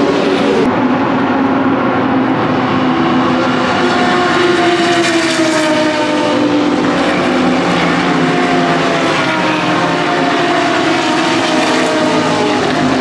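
GT race cars' engines running hard on the circuit, several engine notes rising and falling in pitch as the cars go past.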